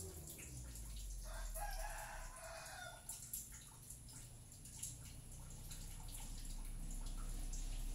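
A rooster crowing once, faint, for about two seconds starting about a second in, over a low steady hum.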